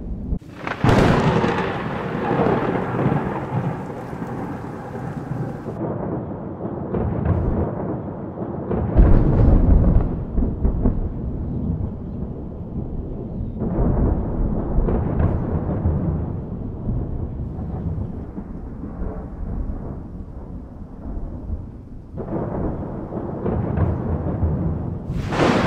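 Thunder during a thunderstorm: a sudden crack about a second in rolls into a long rumble, followed by further rolling peals that are heaviest about nine seconds in and again near the end, with rain falling throughout.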